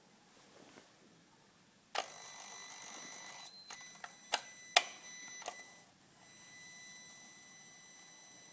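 A steady high-pitched whine from the 2005 Volvo S40 T5 starts abruptly with a click about two seconds in and holds, dropping out briefly and returning. A few sharp clicks come partway through.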